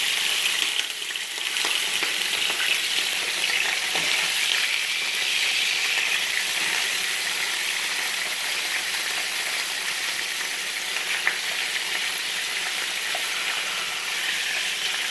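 Soy-marinated pork ribs sizzling steadily in hot oil in a frying pan, with a few small pops, being fried first until golden brown.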